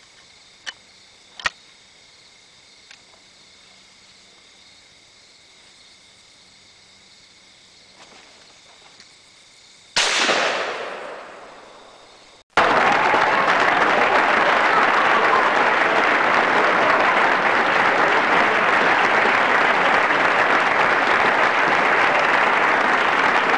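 A couple of sharp clicks from handling a shotgun, then a single shotgun shot about ten seconds in that echoes and dies away over about two seconds. Right after, a canned applause sound effect cuts in suddenly and runs on steadily and loudly.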